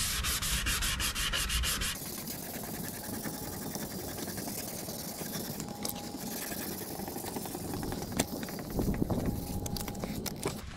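Wet sandpaper, 800 grit, rubbed by hand over a matte, weathered plastic headlight lens in fast back-and-forth strokes, abrading off the rough, clouded surface. The strokes are loudest for the first two seconds, then the rubbing goes on more quietly with a few light clicks.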